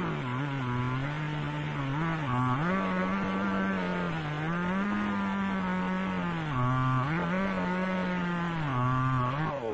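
Two-stroke chainsaw engine running at full throttle as the saw, held in a chainsaw-mill guide frame, rips along a log. The engine pitch repeatedly drops as the chain slows under the cutting load, then climbs back. At the very end the throttle is let off and the revs start to fall.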